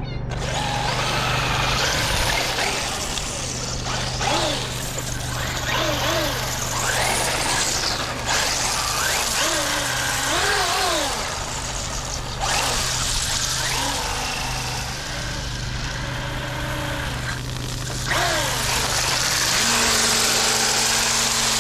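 Radio-controlled truck's electric motor whining, its pitch rising and falling again and again as it accelerates and drifts on hard 3D-printed PLA rings, over a steady hiss of wheels sliding on a damp road.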